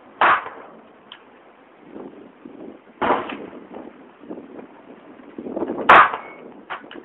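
Three shots from a GSG 1911 .22 LR pistol, about three seconds apart.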